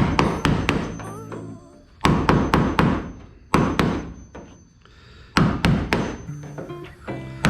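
Clusters of sharp thunks and knocks every second or two, each dying away, over background music.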